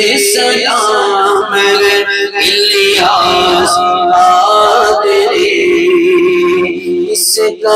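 Male voice singing a devotional manqabat in long, drawn-out notes that waver and curl in pitch.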